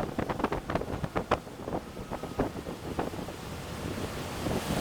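Wind rushing over the microphone of a boat running at high speed, over the low steady drone of its Mercury 150 hp outboard near wide-open throttle. Short knocks and slaps come thick in the first three seconds, then thin out.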